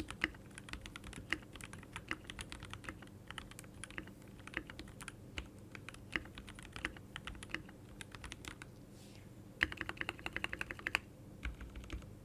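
Many small, sharp clicks in quick irregular runs with short pauses, and a faster, denser run toward the end, over a faint steady hum.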